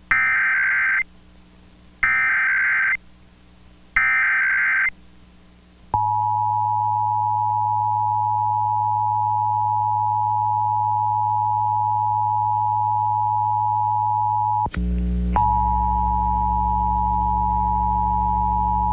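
Emergency Alert System SAME header: three one-second bursts of data screech, a second apart. Then the EAS two-tone attention signal (853 and 960 Hz), a steady dual tone that cuts out for a moment about fifteen seconds in and resumes with a low hum under it, announcing a statewide Required Monthly Test.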